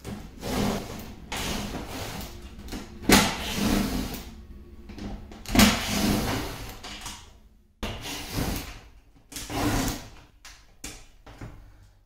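Cordless drill-driver whirring in repeated short bursts as it backs screws out of a dishwasher's stainless steel top panel, with a couple of sharp metallic clicks.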